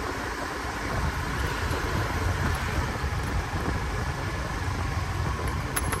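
Steady road and wind rumble from riding a motorbike along a city street, with the faint hum of its engine.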